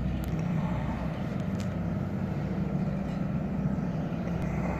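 A large houseboat's engine running steadily at low speed while it manoeuvres, making a low, even hum.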